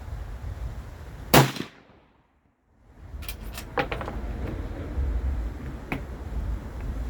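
A single rifle shot about a second in, so loud that the sound cuts out for a moment after it, followed by a few light metallic clicks and wind rumble on the microphone.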